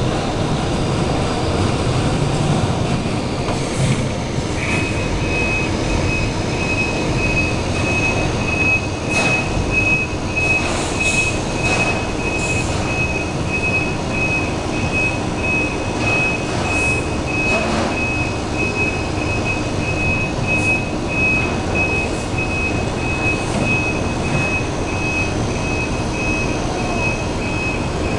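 Garbage truck running as it picks up a metal dumpster, with metal clanks and bangs now and then. A high, steady beeping alarm starts about five seconds in and keeps going.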